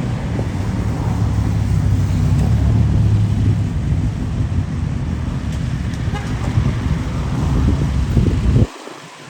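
Big motorcycle engine running with a deep, steady rumble, cut off abruptly near the end.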